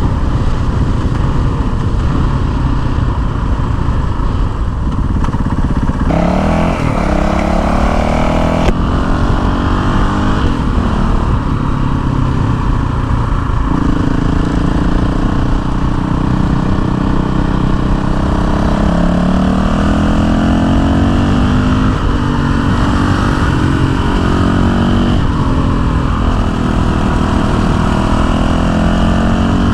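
Honda CRF450L's single-cylinder four-stroke engine under way, its pitch rising under throttle and dropping again several times as the bike speeds up and shifts through the gears, over a steady rushing noise.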